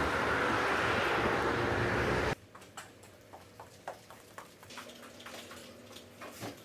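Steady road and wind noise from riding a bicycle in traffic, cutting off suddenly a little over two seconds in. Then light footsteps on a wooden floor, about two or three steps a second, over a faint steady hum.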